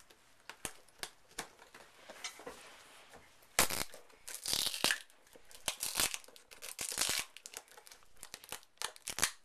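Packing tape being cut and peeled off a taped-up package: a string of short rips and crinkles with clicks between them, the loudest rips coming in the middle few seconds.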